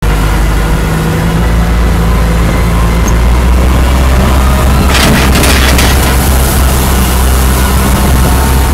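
Forklift engine running with a deep, steady note as heard from the operator's seat, with a brief rush of hiss about five seconds in.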